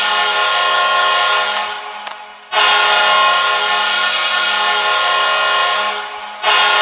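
Ice hockey goal horn blasting in long, loud sustained blasts of about four seconds each. It fades and breaks off briefly about two and a half seconds in and again near the end, each time starting a fresh blast.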